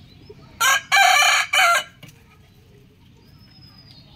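Rooster crowing once, loud and close: a cock-a-doodle-doo in three parts lasting just over a second, starting about half a second in.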